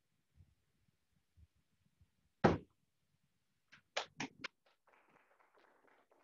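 A loud knock about two and a half seconds in, then a quick run of four sharp clicks about four seconds in, followed by soft rustling, all with the sound of a small room.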